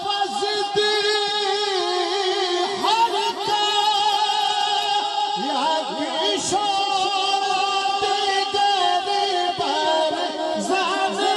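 Devotional naat singing: a melodic voice wavering through long ornamented phrases over a steady held drone.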